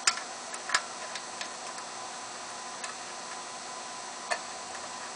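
Sharp clicks and taps of small metal parts and tools, as the transformers' ground wires are reattached: two loud clicks in the first second, then a few fainter ticks and one more click near the end, over a steady background hiss.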